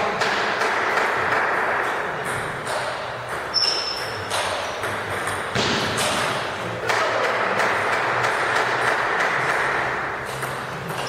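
Table tennis ball clicking off bats and the table in short strokes during a rally, with more ball clicks from another table, over a steady background din.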